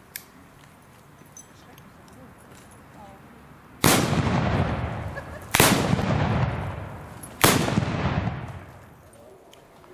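Three black-powder salute gun shots, fired one after another about two seconds apart, each a sharp bang followed by a long fading echo.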